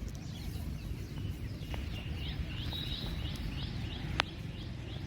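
A bird calling in a run of short, repeated chirps over a steady low outdoor rumble, with one sharp click about four seconds in.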